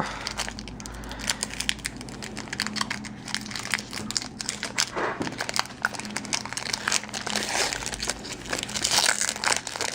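Plastic wrapping of a baseball card pack crinkling as it is handled and opened, a continuous crinkle with many small sharp clicks.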